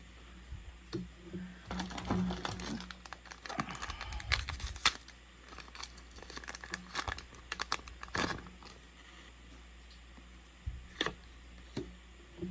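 A trading-card booster pack being torn open, its foil wrapper crinkling in a dense run of crackles for several seconds. The crackling dies down, leaving a few isolated clicks near the end.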